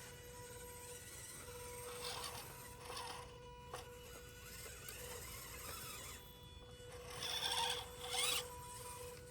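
Axial SCX24 micro RC crawler's small electric motor and gearbox whirring in short bursts as throttle is applied, the loudest two near the end, over a faint steady tone.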